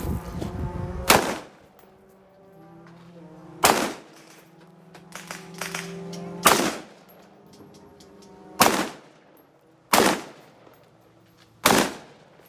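Rifle shots fired one at a time in an IPSC practical rifle match: six loud cracks, each with a short ringing tail, spaced one to three seconds apart. Background music with sustained tones plays under them.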